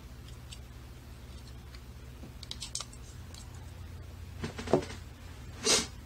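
Small metal clicks and rattles from a picked Zeiss Ikon WSW W10 dimple-and-slider lock cylinder as its plug is drawn out on the key. A few faint clicks come midway, then a louder cluster about four and a half seconds in, and a short scrape near the end.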